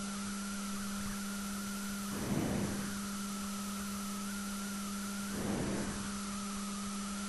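Steady electrical hum with a thin high whine and hiss from the recording setup, with two brief soft swells of noise, one about two seconds in and one about five and a half seconds in.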